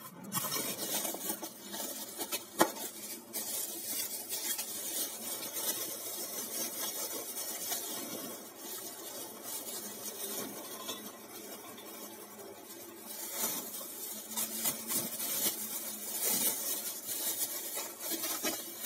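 Kitchen handling noise: a thin plastic bag crinkling and rustling as it is handled, with light clatter of bowls. There is one sharp knock about two and a half seconds in.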